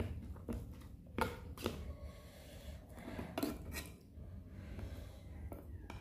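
Metal spoon clinking and scraping against the inside of an open tin can while scooping canned sweet corn: a few sharp clicks, the loudest about a second in.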